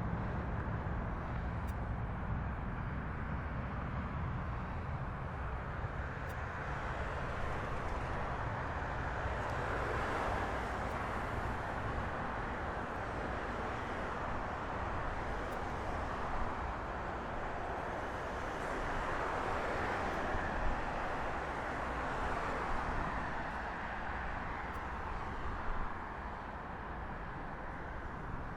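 Jet airliner engines heard from a distance, most likely a Southwest Boeing 737 on its takeoff run: a steady rumbling roar that swells about ten seconds in and again near twenty seconds.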